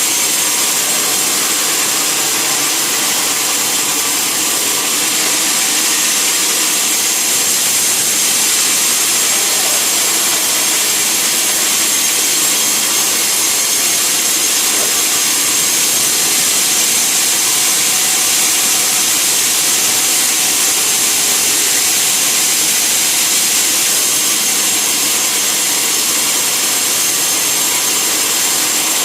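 Sawmill saw running through wood, a loud steady high-pitched whine and rasp with no break.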